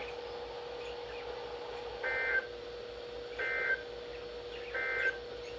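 Emergency Alert System end-of-message (EOM) data tones closing a tornado warning: three short bursts of two-tone digital screech, about a second and a half apart. A steady low tone hums underneath.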